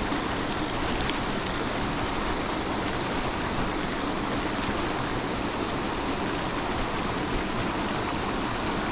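Steady rushing noise of a creek running high, with rain falling.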